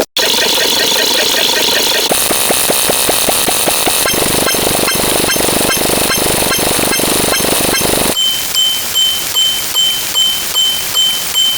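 A run of unrelated sound effects, cut one after another every few seconds. There is a brief drop-out at the start, then rapid regular clicking in the middle, and near the end a high electronic beep repeating about two and a half times a second.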